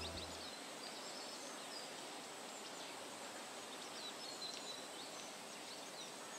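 Faint woodland ambience: a soft, even background hiss with scattered short bird chirps.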